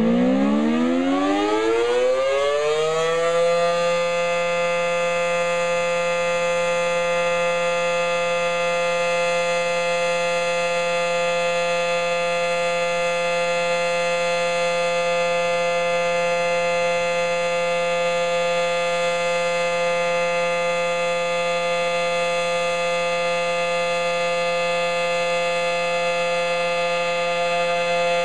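Federal Signal SD-10 outdoor warning siren finishing its wind-up: the pitch rises for the first three seconds or so, then holds one steady tone, sounded for a tornado drill test.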